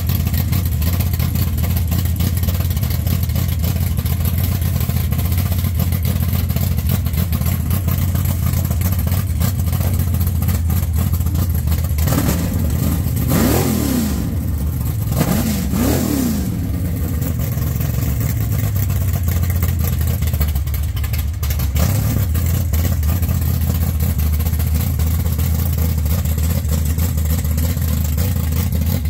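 A drag-race pickup truck's engine idling loudly and steadily, with two throttle revs close together around the middle, each rising and then falling in pitch.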